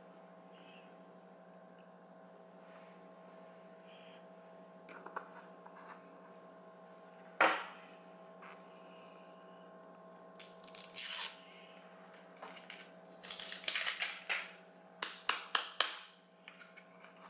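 Plastic nail powder jars and packaging being handled: a single sharp knock about halfway through, then several bursts of quick clicks and rustling in the last third, over a steady low electrical hum.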